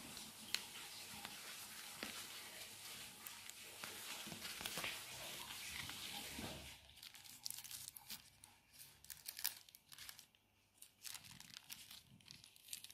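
Paper wrapping being unrolled and pulled open with a continuous rustle, then a thin plastic bag crinkling in separate crackles as it is unfolded from about seven seconds in.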